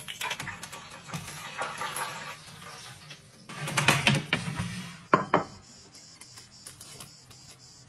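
Hot oil sizzling in an electric deep fryer around frying arancini, with light metal clicks of tongs against the wire fryer basket. About halfway through comes a louder rustling burst and a few sharp knocks as the crisp rice balls are set down, then it goes quieter.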